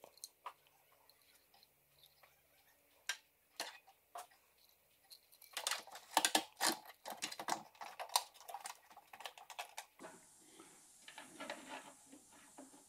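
Light clicks and clatter of hand work on a car heater box assembly. There are a few separate clicks at first, then a busier run of clicking and rustling through the middle.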